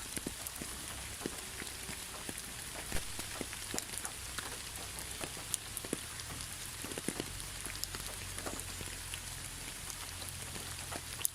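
Steady rain falling, an even hiss with many individual drops landing as short, sharp ticks at irregular moments.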